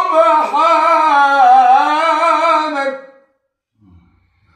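A man's unaccompanied Quran recitation in melodic tajweed style, holding one long ornamented vowel with a wavering pitch for about three seconds before breaking off.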